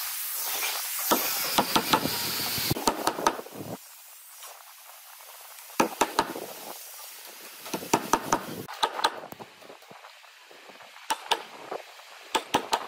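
Wood chisel chopping out a mortise between a row of drilled holes in a thick plank of reclaimed boat wood: short bursts of sharp knocks a few seconds apart. A steady hiss runs under the first few seconds.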